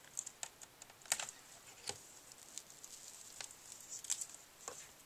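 Scattered light clicks and taps from a Dell XPS M1530 laptop's screen assembly being handled as its display cable connectors are unplugged, the sharpest click a little over a second in.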